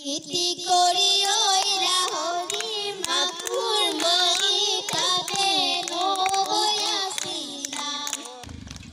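A young girl singing solo into a handheld microphone, in held, wavering notes; the singing stops shortly before the end.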